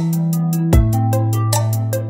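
Background music with a steady beat, deep drum hits and held bass notes.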